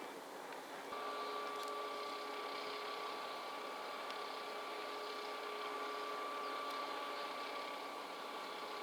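Crane vessel's machinery running steadily, a mechanical hum with a high whine that comes in about a second in and holds.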